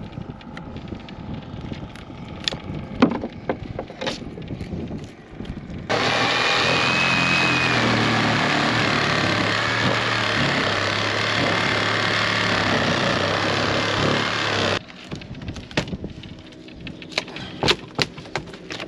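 A motorised tool runs steadily for about nine seconds, starting and stopping abruptly, with a low hum and a faint high whine. Scattered knocks and taps come before and after it.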